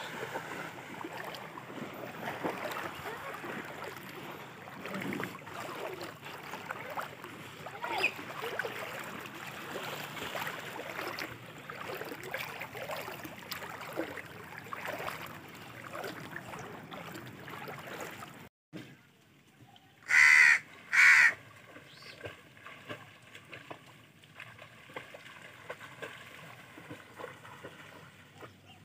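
A crow cawing twice in quick succession, the two calls the loudest sounds here, after a steady background wash of noise that cuts off abruptly.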